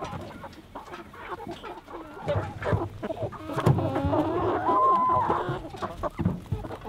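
A crowded flock of Ross broiler chickens clucking and calling. From about two seconds in, many calls overlap and grow louder, with one drawn-out call about five seconds in, and they ease off near the end.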